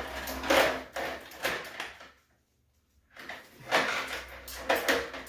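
Steel swivel being fitted onto the end of a heavy captive inline coil spring by hand, metal clinking and rattling in two busy spells of about two seconds each, with a short pause between.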